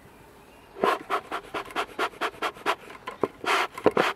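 Beekeeper's smoker bellows pumped quickly, pushing rapid breathy puffs of air, about four a second, into the firebox to fan a just-lit firelighter and wood shavings into smoke. The puffing starts about a second in.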